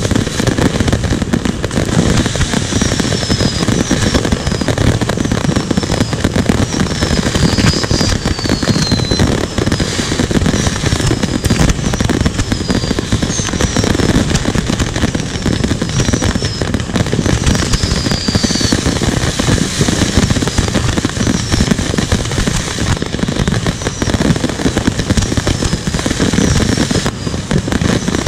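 Dense, continuous barrage of fireworks: many shells bursting and crackling at once with no let-up. Short whistles that fall in pitch come through every second or so.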